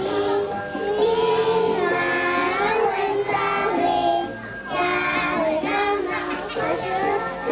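A group of young children singing a Taiwanese local folk song together with an instrumental accompaniment, in phrases with a short breath about halfway through.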